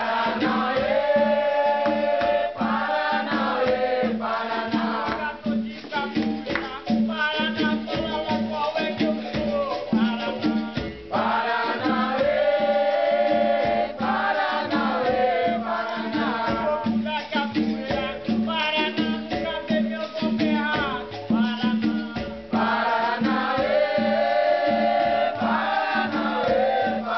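Live capoeira roda music: a group singing in phrases over a berimbau, a shaken rattle and an atabaque hand drum, keeping a steady rhythmic pulse.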